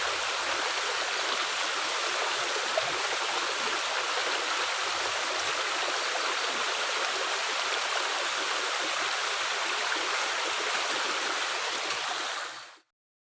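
Steady rush of water running through a culvert, fading out near the end.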